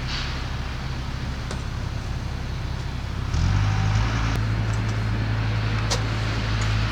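Steady rain with a few sharp drip ticks, under a low steady rumble that grows suddenly louder about three seconds in.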